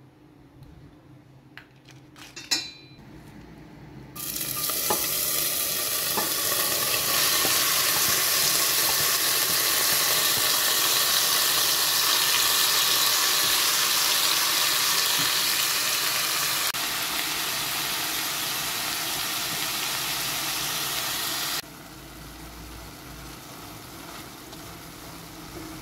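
Cubed beef and chopped onion sizzling in hot oil in a stainless steel pot while being stirred with a spatula. After a few light clicks and one sharp knock, the sizzle starts suddenly about four seconds in and stays loud and steady, then drops suddenly to a much quieter hiss near the end as the meat cooks in its juices.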